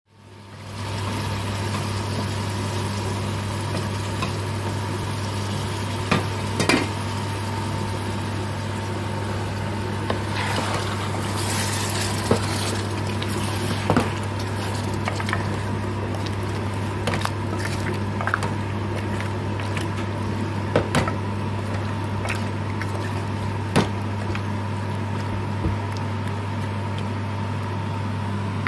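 A spoon knocking and scraping now and then against a metal pot as boal catfish and potatoes are stirred in curry sauce, over a faint sizzle. A steady low hum runs underneath throughout.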